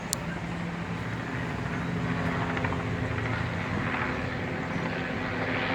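Helicopter flying low overhead, a steady drone of engine and rotor, almost hovering. A single sharp click sounds just after the start.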